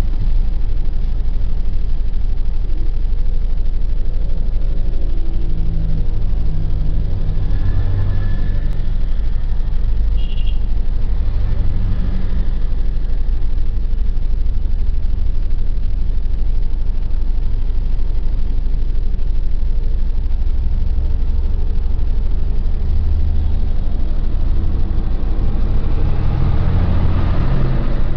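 Steady low rumble of vehicle engines and road noise heard from inside a moving car, alongside a diesel farm tractor pulling a loaded trolley.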